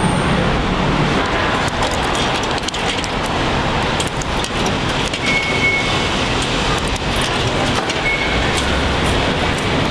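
Steady loud road-traffic noise. Over it come light clicks as coins are fed into a ticket vending machine, and a couple of short high beeps.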